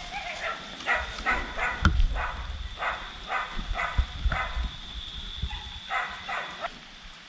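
A dog barking in a run of short barks, stopping for a moment, then two more barks, with a steady high insect-like tone under them.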